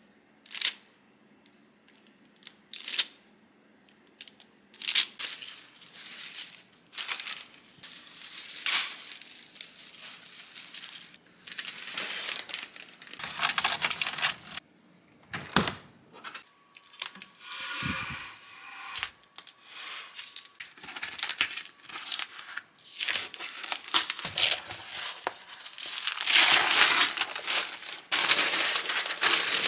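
Paper and packaging being handled in a string of crinkles, rustles and small clicks. Near the end comes the loudest part, a long stretch of rustling and tearing as a glass shelf is unwrapped from its protective paper wrapping.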